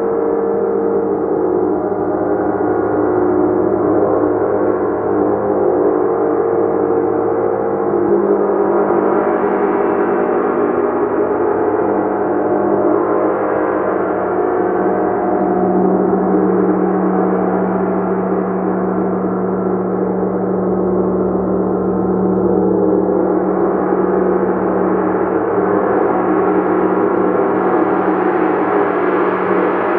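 Large gong sounding continuously in a sustained, dense wash of many overlapping tones, kept going by continuous playing with no separate strikes standing out. The upper overtones swell a little near the end.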